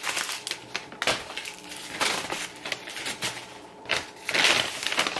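Paper takeout bag crinkling and rustling as it is handled and pushed aside, with a louder burst of crumpling about four seconds in.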